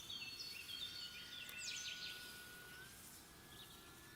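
Songbirds singing: short whistled phrases and chirps, repeated, with a faint steady high whine underneath that steps up slightly in pitch about three seconds in.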